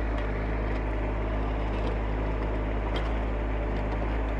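Skid steer's diesel engine running at a steady pitch and level while the grapple works.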